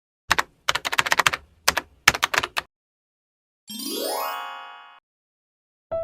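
Quick clusters of keyboard typing clicks for about two and a half seconds, then a rising sweep tone lasting about a second. Piano music starts near the end.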